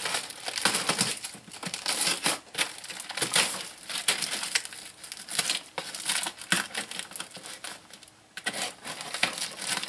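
A small hand blade slicing and scraping through packing tape and cardboard on a shipping box, in many short irregular scratchy strokes, with the tape and cardboard crinkling. The blade is not very sharp and drags through the tape.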